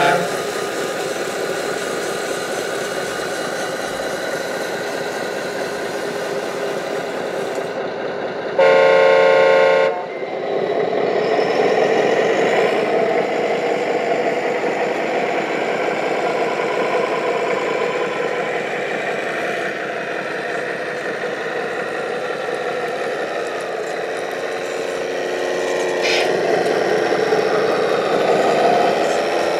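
Engine sound from a radio-controlled semi-truck's sound module, running steadily as the truck drives, with one loud truck-horn blast of about a second and a half about nine seconds in. The engine sound picks up a little just after the horn and again near the end.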